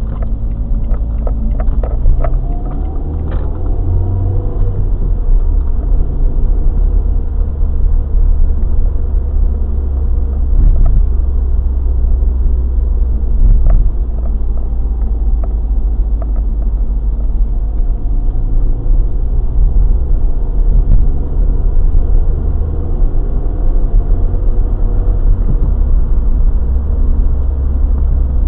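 Car cabin noise while driving: a steady low engine and road rumble, with the engine note rising a few times as the car gathers speed, and a few faint clicks in the first seconds.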